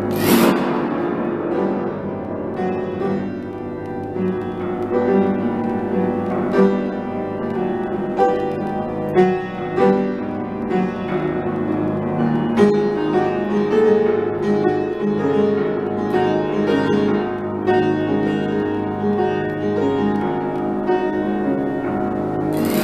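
Piano playing a busy run of notes. A saucepan lid used as percussion is struck and rings out brightly at the start and again near the end.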